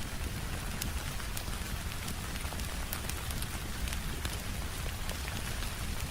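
Steady rain mixed with a crackling fireplace fire: an even hiss and low rumble with scattered sharp crackles and pops throughout.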